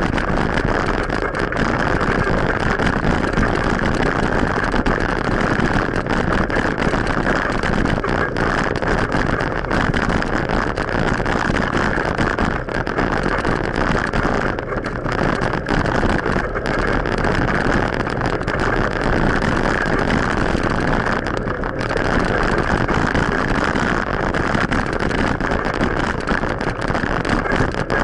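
Steady rushing noise of riding a bicycle: wind buffeting an action camera's microphone mixed with road and tyre noise.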